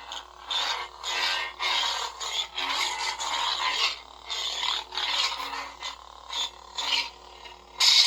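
Lightsaber sound effects from the hilt's small speaker: a faint steady hum under a run of noisy swing whooshes, one after another, as the blade is moved.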